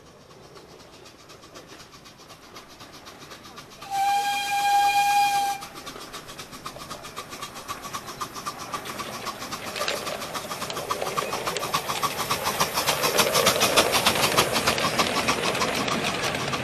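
Miniature-gauge steam locomotive giving one whistle of about a second and a half, then drawing near and passing with its coaches. A rapid, even, rhythmic clatter of the train on the track grows steadily louder.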